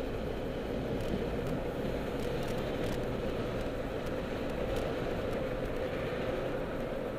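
Steady road noise inside a moving car's cabin: an even rumble of engine and tyres with a constant hum.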